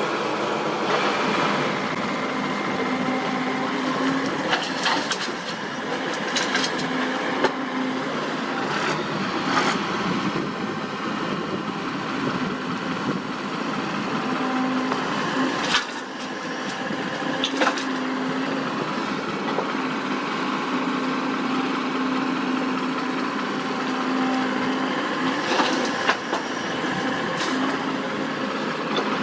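Sany SY75C excavator's diesel engine running steadily as it works, its note swelling at times under hydraulic load, with scattered sharp knocks and clanks about a dozen times.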